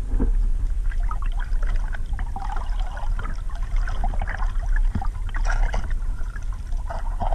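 Water heard through an underwater camera: a steady, muffled deep rush with irregular crackling and bubbling.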